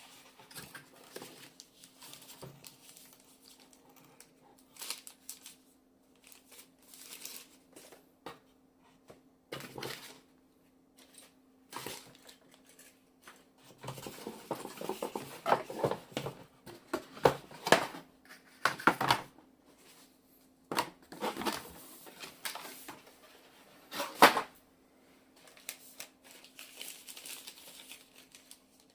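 Packaging being handled and unwrapped: irregular rustling, crinkling and scraping in uneven bursts, busiest through the middle with a loud burst a few seconds before the end, over a faint steady hum.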